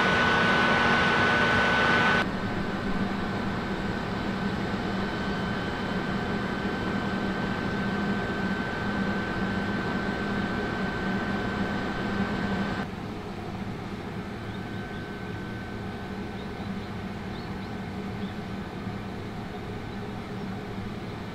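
Electric train standing at a station, its onboard equipment giving a steady hum with a thin high whine over it. The sound drops abruptly twice, about two seconds in and again about thirteen seconds in, as parts of the equipment cut out.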